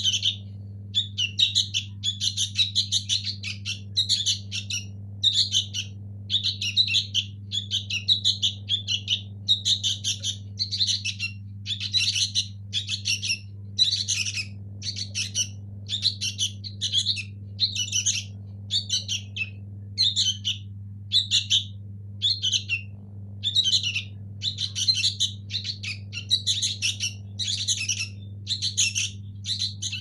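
Fledgling sooty-headed bulbuls giving begging calls: rapid clusters of high, shrill chirps about twice a second, unbroken, as they gape to be fed. A steady low hum sits underneath.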